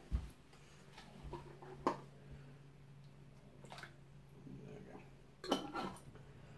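Jar of tikka sauce being handled and poured over meat in a dish: a few light, scattered knocks and clinks of glass and crockery, over a faint steady low hum.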